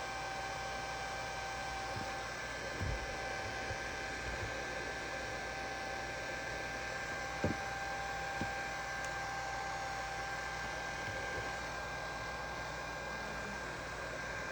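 Heat gun blowing steadily, with a steady high whine over its airflow, heating a phone to soften stubborn adhesive; a few faint knocks of tools on the phone.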